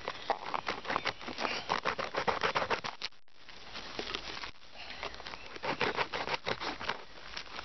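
Hard plastic ice scraper sawing at a blackberry cane: quick rasping strokes, several a second, with a brief break about three seconds in.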